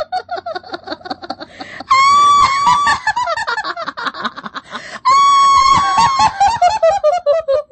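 High-pitched laughter: a held squeal breaking into quick, falling giggles, heard twice, with quieter fast giggling in between.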